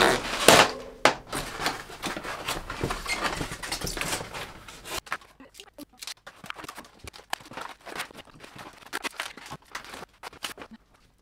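Unpacking noise: a bike being lifted out of a cardboard box and its foam packaging pulled off, giving irregular knocks, thunks and rustling. The noise is busiest in the first few seconds and thins to scattered clicks and handling sounds after about five seconds.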